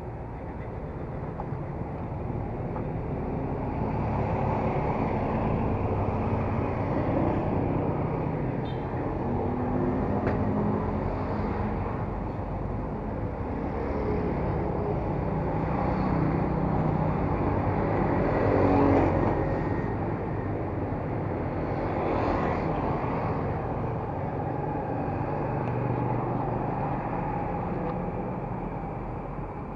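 Street traffic: motor vehicles running past, the engine noise swelling and fading several times, loudest a little past the middle.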